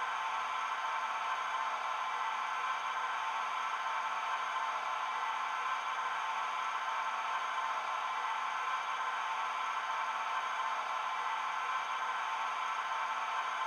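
Model locomotive sound decoder playing a Class 37 diesel engine idling, through a pair of small 20x20x7 mm megabass speakers on a Bachmann OO-gauge Class 37: a steady, unchanging idle.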